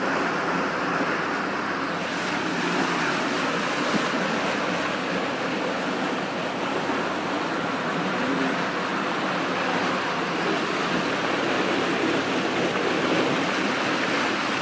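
Steady rush of seawater and wind around a small boat at sea, an even hiss without a break.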